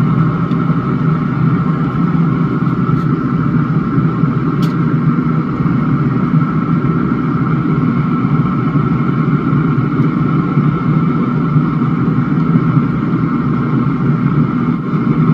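Recteq pellet smoker running, its fan giving a steady mechanical hum.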